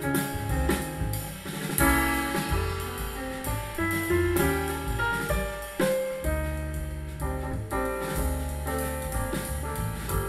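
A jazz track with piano and drums played back through a pair of Sharp CP-C411H bass-reflex bookshelf speakers, picked up by a microphone in the room.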